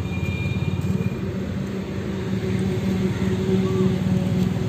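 A steady low hum, like an engine or motor running.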